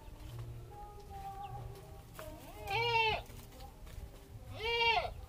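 Goat bleating twice, about two seconds apart. Each call lasts about half a second, rising and then falling in pitch.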